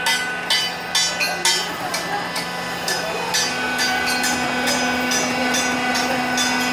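Steady hum of a hydraulic press's electric motor and pump, with a second tone joining about three and a half seconds in. Over it, a quick series of sharp knocks, about two a second, like hammering, fades out after the first few seconds.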